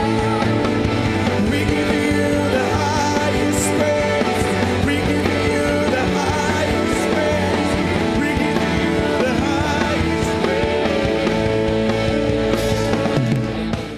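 Live worship band music played loud and steady on held chords, dying away right at the end.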